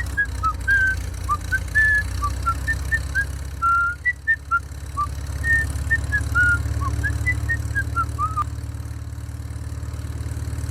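A steady low motor hum with a quick string of short whistled chirps at changing pitches over it; the chirps stop about eight and a half seconds in while the hum runs on.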